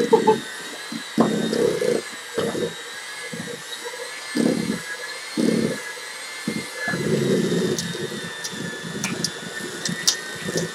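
Electric hand mixer running steadily, its beaters churning thick cream cheese pie filling in a stainless steel bowl. The motor's whine holds steady while uneven low surges come and go as the beaters work the heavy mixture.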